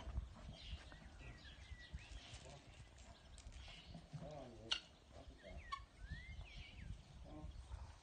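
Faint outdoor ambience: wind rumbling on the microphone, with scattered short bird chirps and one brief low call a little after four seconds in.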